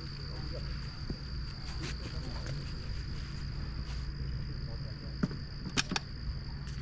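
Steady high-pitched insect drone over a low hum, broken near the end by two sharp cracks about half a second apart, the second louder: .22 LR rimfire rifle shots.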